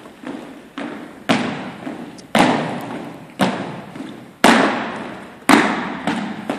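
Marching footsteps of a drill squad in step on a hardwood gym floor: shoes strike the boards in time, a heavy stamp about once a second with lighter steps between. Each strike echoes through the hall.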